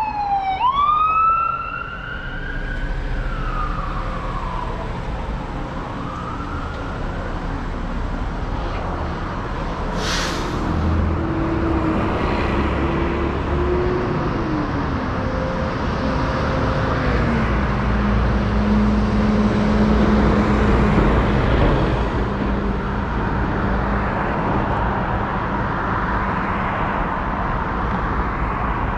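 Fire department paramedic sirens wailing, gliding down, then up and down again, and fading within the first several seconds. Steady traffic noise and a vehicle engine running follow, with one sharp click about ten seconds in.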